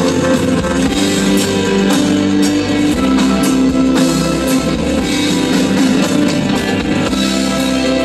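Live rock band playing an instrumental passage between sung lines: electric guitars and bass holding steady chords over a drum kit beat.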